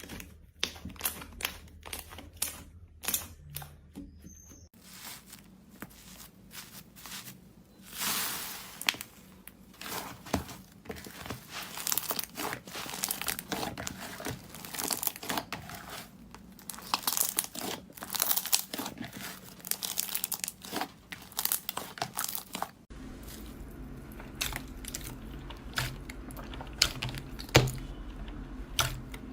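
Slime being handled and pressed by hand, giving a dense run of irregular crackling and popping clicks.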